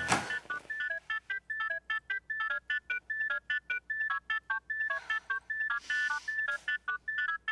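Mobile phone ringtone: a fast electronic beeping melody of short tones, several a second, that cuts off suddenly near the end as the call is answered.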